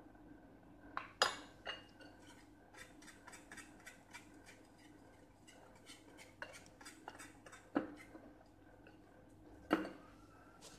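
Metal spoon clinking against a ceramic plate and mixing bowl, and a wire hand whisk ticking against the sides of the ceramic bowl as flour and cocoa are stirred into cake batter. There are a few sharp clinks, about a second in and again near the end, with a run of lighter, quicker ticks in between.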